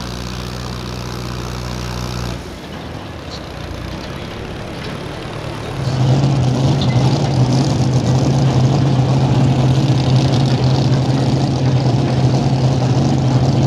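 A steady engine hum stops about two seconds in. About six seconds in, a mini rod pulling tractor's engine comes in much louder and runs loud and steady.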